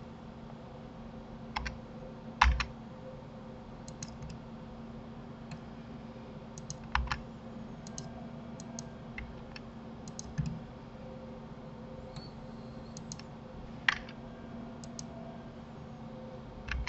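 Scattered computer keyboard and mouse clicks, irregular and a second or more apart, some in quick pairs, over a faint steady hum.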